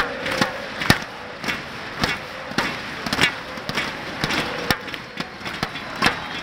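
Football stadium crowd noise, a dense steady din, cut through by sharp, loud cracks close by at uneven intervals of about one or two a second.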